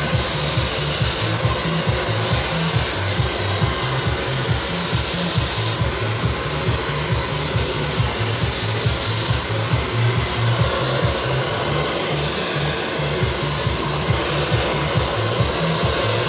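Hand-held hair dryer blowing steadily while hair is dried and styled, with background music that has a steady, repeating bass beat.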